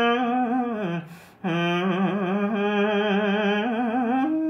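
Khmer smot chanting: a solo male voice drawing out long sung notes with a wavering ornament. It breaks for a breath about a second in, then holds a second long note that steps up in pitch near the end.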